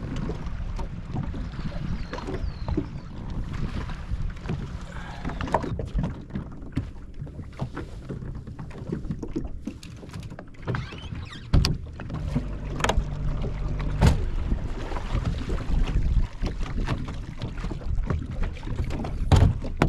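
Water lapping against a bass boat's hull, with wind rumbling on the microphone. There are a few sharp knocks as gear is handled on the deck, the loudest about eleven and fourteen seconds in.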